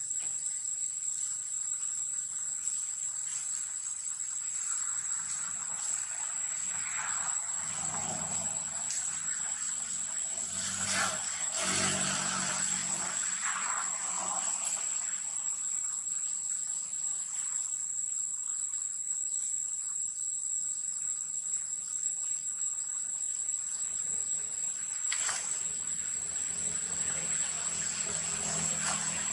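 Steady, high-pitched insect drone that never lets up. Fainter, shorter sounds come and go beneath it around the middle.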